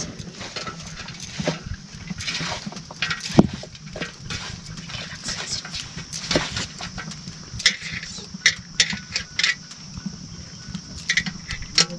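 Cabbage being sliced against a floor-mounted curved blade (a chulesi), giving a run of irregular crisp snaps and crunches. A steady high insect drone sounds throughout.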